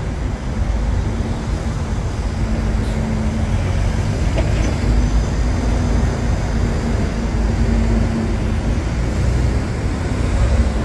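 Road traffic at a busy city intersection: cars and city buses driving past in a continuous low rumble, with a steady low hum through most of it.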